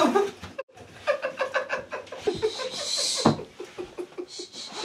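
Women giggling: runs of short, high-pitched laughs, with a brief hiss about halfway through.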